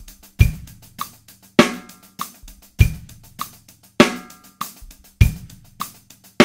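Drum kit playing a simple groove: bass drum on beat one and snare on beat three, with alternating single-stroke sixteenth notes on the hi-hat running steadily underneath. The big hits come about every 1.2 seconds, bass drum and snare in turn.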